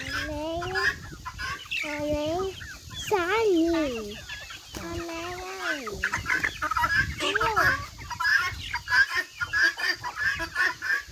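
Flock of chickens clucking and calling: several drawn-out calls that rise and fall in the first half, then rapid clucking chatter in the second half.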